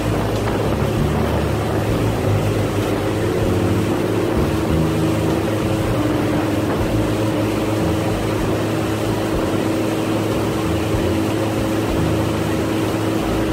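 Mercury outboard motor running steadily at cruising speed, pushing an aluminum fishing boat, with water rushing past the hull. It holds one steady pitch throughout.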